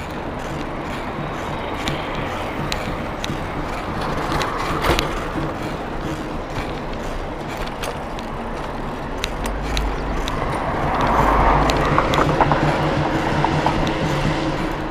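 Busy street noise heard from a moving bicycle, with music mixed in. The sound grows louder about ten seconds in, then eases.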